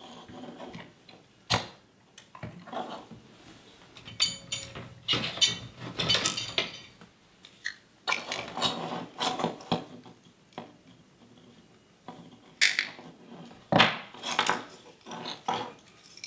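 Wire cutters snipping through the wire leads of a motorcycle handlebar switch assembly, amid irregular clicks, clinks and rattles of small tools and parts being handled on a workbench.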